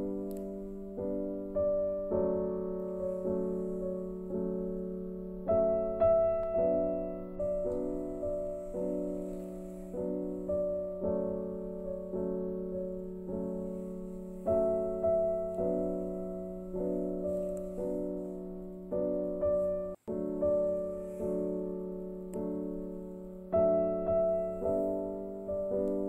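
Background music: a slow, gentle piano piece, notes and chords struck about once a second, each ringing and fading, with a momentary dropout about twenty seconds in.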